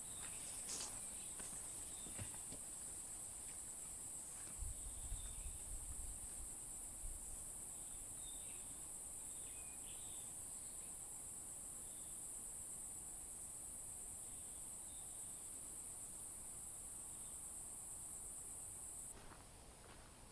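Steady high-pitched insect chorus, like crickets at night, with a few faint short chirps about eight to ten seconds in and a brief low rumble about five seconds in. The insect sound cuts off abruptly about a second before the end.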